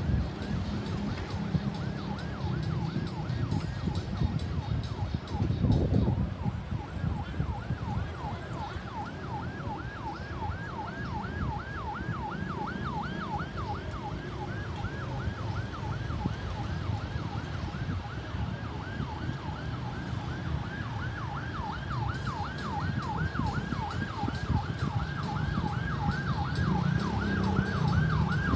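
Ambulance siren on a fast yelp, its tone sweeping up and down about three times a second, over the low rumble of traffic that swells briefly about six seconds in.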